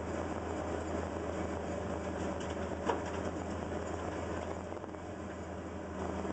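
Caterpillar 320 excavator's diesel engine running steadily, heard from inside the operator's cab, with a single sharp clank about three seconds in.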